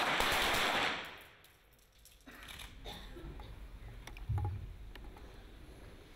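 .22 sport pistol shot on an indoor range, a sharp crack followed by about a second of overlapping shots and echo that fades out. Then quieter range noise with a few faint clicks and a short dull thump about four seconds in.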